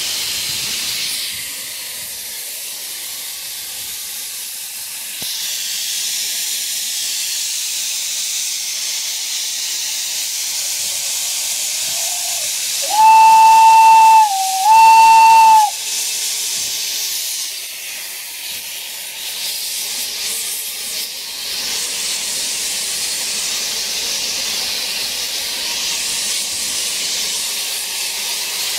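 Steady hiss of escaping steam in the cab of the 1855 Fairy Queen steam locomotive, with two loud, short blasts of the locomotive's whistle on one steady note about halfway through.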